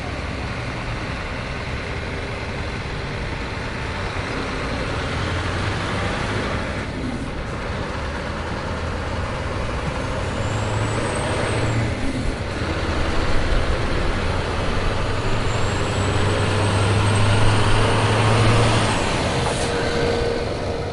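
Heavy truck traffic passing on a road: continuous engine and tyre noise with a deep engine drone. It swells to its loudest twice, about 13 and 18 seconds in, with a brief high whine at each swell, and starts to fade near the end.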